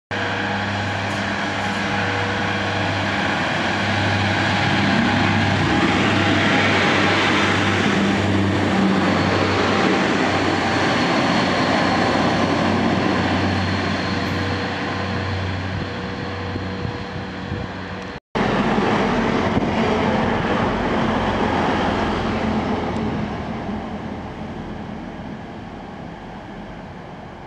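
Pacer two-car diesel railcar running along the line, its diesel engine giving a loud, steady drone. After a break about 18 seconds in, a second train's low rumble fades away as it draws off.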